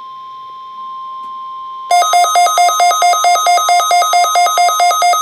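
NOAA Weather Radio's steady 1050 Hz warning alarm tone plays through a receiver's speaker for about the first two seconds. Then a weather alert radio's own alarm cuts in, much louder: a harsh electronic beeping about four times a second, the receiver activated by the test tone.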